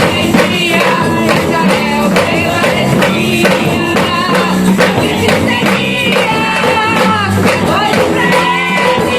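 Live gospel worship band playing: a singing voice over a steady beat of drums and tambourine, with guitar.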